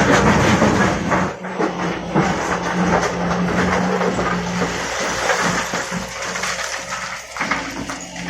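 Liugong 921D excavator at work: its diesel engine runs steadily under load while the bucket clatters and scrapes against rock and soil in irregular knocks.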